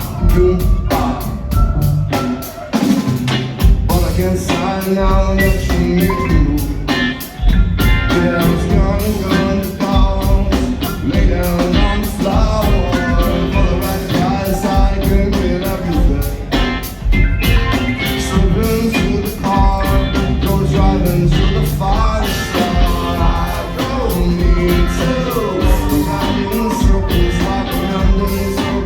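A rock band playing live and loud, with drum kit, bass and other instruments.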